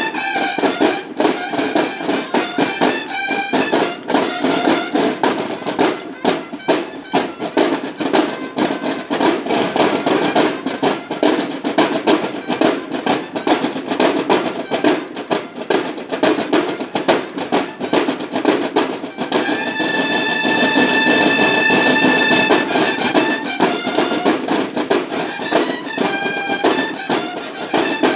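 Banda de guerra playing: massed snare drums beating a fast, dense cadence together with bugles. About two-thirds of the way through the bugles hold one long high note for a few seconds, then play shorter notes over the drums near the end.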